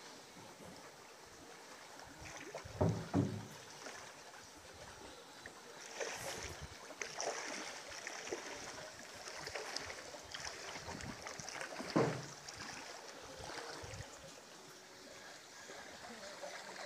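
Floodwater sloshing and splashing as people wade through a waterlogged lane, with a few dull thumps, the loudest about three seconds in and again near the middle.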